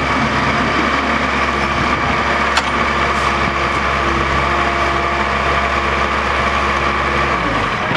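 Heavy diesel engines run steadily under load with a high-pitched whine, as an excavator works to free a ten-wheel dump truck stuck in mud. The low engine note drops away near the end.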